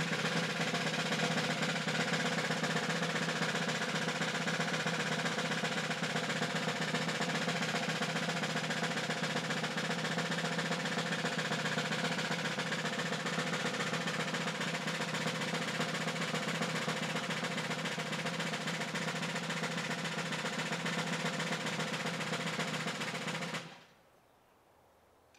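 Snare drum roll, held steady for about twenty-four seconds and then cut off sharply.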